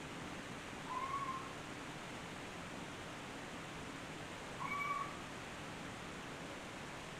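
Two short meow-like calls over a steady hiss, one about a second in and one just before five seconds. Each rises quickly and then holds level for about half a second.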